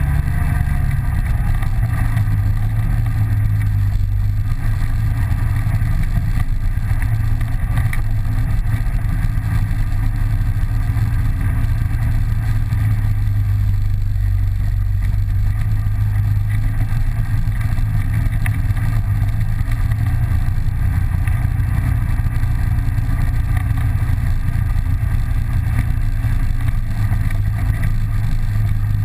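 Polaris 800 twin-cylinder ATV engine running at a steady, moderate pace on a dirt trail, heard close up from a camera mounted on the machine: a constant low engine hum with no sharp revs.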